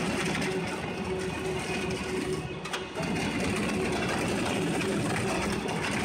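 Industrial document shredder (ZEDA-PN5000) running, its counter-rotating shafts of hooked cutter discs tearing through bundles of paper. A steady machine drone and hum goes on under the crunching of the paper, with a few sharp cracks near the middle.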